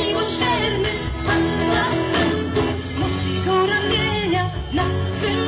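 Live band playing an upbeat Christian worship song, with singing voices over the band.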